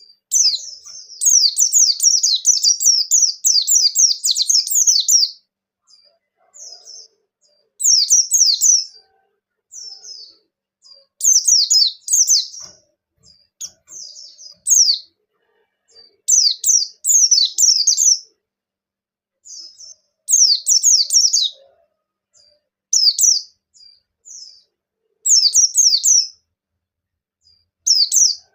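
White-eye (pleci bustomi) singing a fast, twittering song of rapid high falling notes. A long unbroken run about a second in is followed by short bursts every couple of seconds. This is the full-voiced 'gacor ngalas' song used as a lure to set other white-eyes singing.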